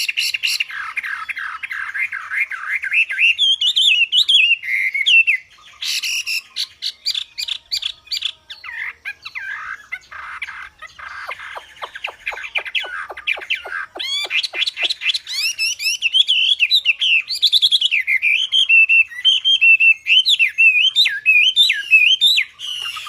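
Chinese hwamei (wambi) singing a long, varied song of loud whistled phrases that slide up and down, broken by fast trills of rapidly repeated notes.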